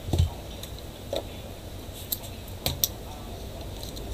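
A few light clicks and knocks as hands handle the parts of an opened laptop. The loudest is a dull knock just after the start, with sharper clicks around one second in and near three seconds.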